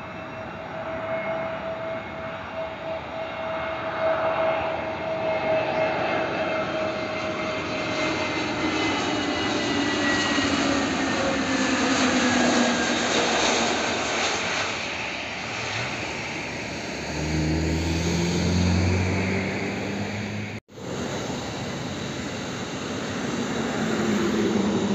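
Airbus A320neo jet engines whining as the airliner comes in low to land and passes by, the pitch slowly falling, loudest about halfway. A deeper rumble builds up after touchdown. After a sudden break near the end, another jet airliner's engines run steadily on the runway.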